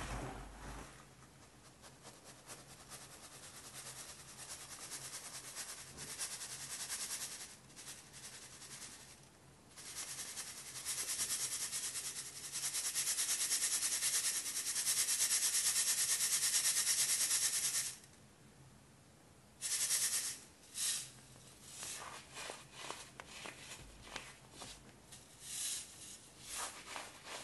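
Purple-dyed baking soda sifted through a metal mesh strainer: a fine, steady hiss of powder pouring onto a pile, loudest through a long middle stretch. After a short pause near the end, softer scattered rustles come as the hand works the powder.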